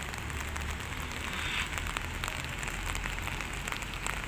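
Steady rain falling on wet pavement, many small drops ticking over a low rumble.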